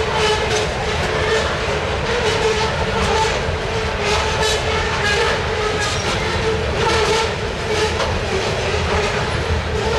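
Loaded coal hopper cars rolling past at speed: a loud steady rumble with repeated clacks of steel wheels over rail joints, and a ringing tone that comes and goes.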